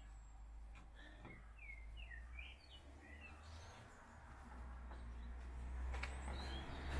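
Small birds chirping in quick short notes, faint, over a steady low rumble of background noise.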